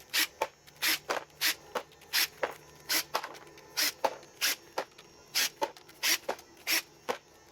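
A hand ratchet clicking as the transmission pan bolts are worked loose: a train of sharp clicks at about two to three a second.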